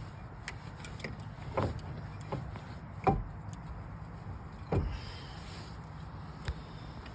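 A handful of separate metal knocks and clicks from brake parts being handled and fitted during a pad change, the loudest about three seconds in, over a low steady hum.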